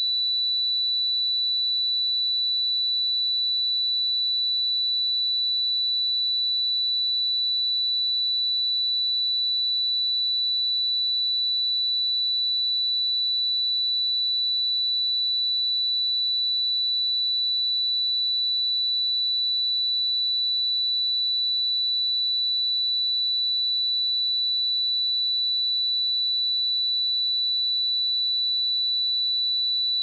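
A pure 3962 Hz sine-wave test tone, a single steady high-pitched note held without change.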